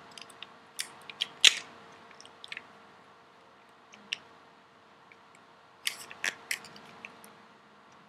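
Scattered plastic clicks and knocks as a KSC G18C airsoft pistol is handled and its selector switch is pushed down to full auto. The loudest click comes about one and a half seconds in, and a quick run of clicks comes around six seconds in.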